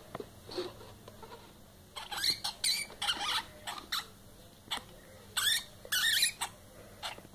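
Hamsters squeaking as they fight: a run of sharp, high-pitched squeals, loudest near the end, after a single knock at the start.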